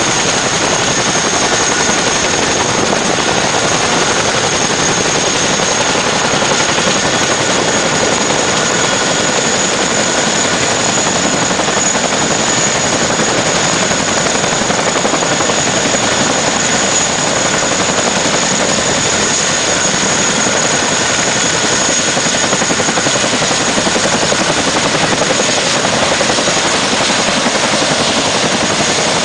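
CH-47 Chinook helicopter running on the ground, its tandem rotors and twin turboshaft engines making a loud, steady noise with a high, even turbine whine over it as it taxis.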